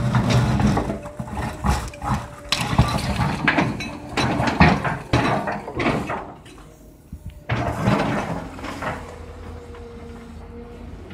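Building demolition by a hydraulic excavator: repeated crashing and clattering of brick and concrete rubble as the bucket breaks and drops masonry, with the machine's engine running underneath. The crashing is dense for about six seconds, eases off, comes back in a short burst about eight seconds in, and then settles to a quieter steady rumble.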